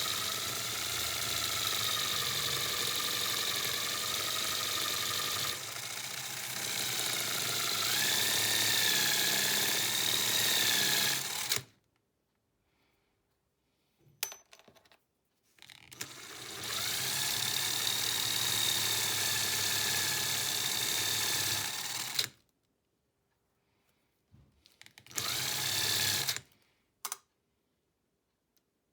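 Small electric power tool motor machine-polishing metal spoon lures, running in three spells: about twelve seconds, then about six, then a short one near the end. Its whine wavers and steps up in pitch partway through the first spell, with light clicks in the pauses.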